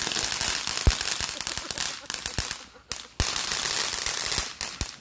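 Ground firework crackling: a dense, rapid stream of small pops over a sizzling hiss, with one louder pop just under a second in. The crackling breaks off briefly about three seconds in, then starts again.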